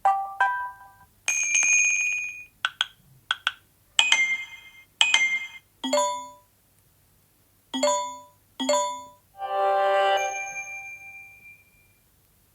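Samsung Galaxy S9 notification tones previewed one after another: about a dozen short chimes, dings and pings, each fading fast or cut off by the next, with one longer tone near the end.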